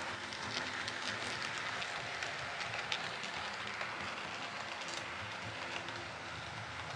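H0-scale model train running past on the layout track: a steady rushing rattle of small wheels on the rails with a faint motor hum and scattered light clicks.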